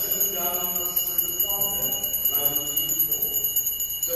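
Liturgical chant: a voice singing in held, level notes. A steady high-pitched electronic whine sounds behind it.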